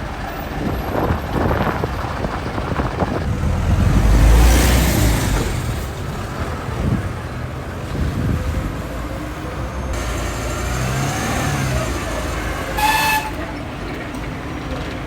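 Street traffic running steadily. A vehicle passes close about four seconds in, the loudest moment. A vehicle horn gives one short toot near the end.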